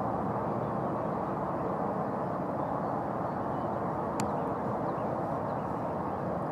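Steady low outdoor rumble with a faint hum, with one sharp click about four seconds in.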